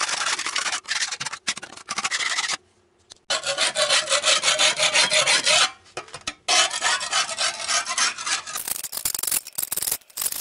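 A metal putty knife scraping dried concrete off the edge and base of a freshly cast concrete step, in runs of quick strokes separated by short pauses.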